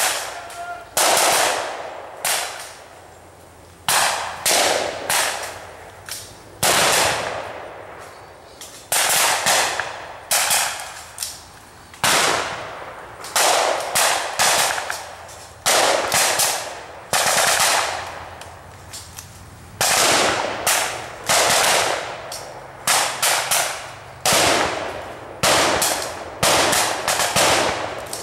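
Blank-fire gunfire from a reenacted firefight: irregular single shots and quick bursts of several rounds, each shot ringing out and dying away briefly.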